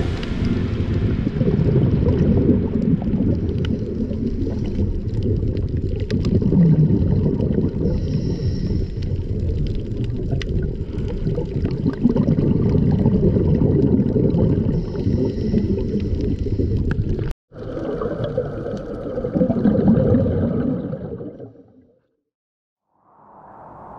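Muffled underwater rumble of moving water picked up by a camera in its dive housing, with scattered clicks. Near the end a scuba diver's exhaled bubbles rise and swell before the sound fades out.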